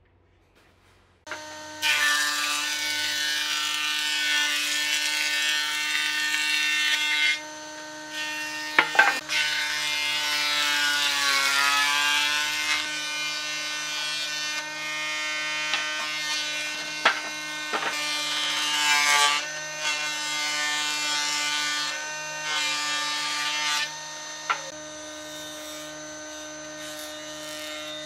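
Electric jointer (combination jointer-planer) starting up about a second in and running with a steady whine, with about four louder stretches of rough-sawn wood being cut by the spinning cutterhead as boards are fed over it. The pitch dips slightly under load during one pass, and there are a few sharp knocks from boards being handled.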